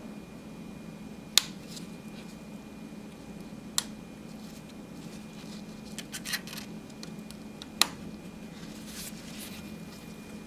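Sharp clicks and light scraping of hands and metal parts working the retaining clip onto the new transmission cooler line's fitting at the radiator. There are three louder clicks a few seconds apart, with a run of small clicks and scrapes between the second and third.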